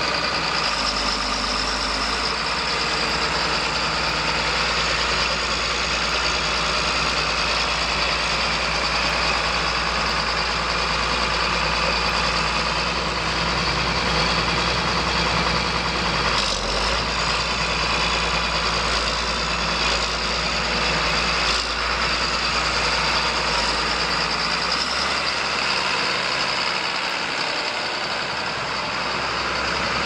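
John Deere 4555 tractor's turbocharged six-cylinder diesel engine running steadily as the tractor drives and turns, with a couple of brief knocks around the middle. The deep low rumble drops away near the end as the tractor pulls away.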